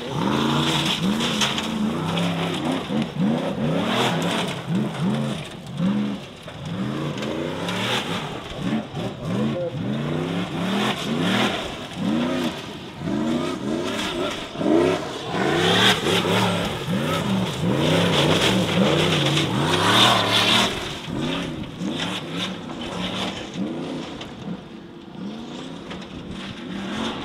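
Formula Offroad buggy's V8 engine revving hard, the pitch rising and falling over and over as the driver works the throttle, with spinning tyres throwing gravel and dirt.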